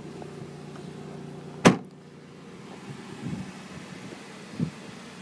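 The trunk lid of a 2006 Buick LaCrosse is shut with a single sharp slam, over a steady low hum from the car's idling engine. Two softer knocks follow later.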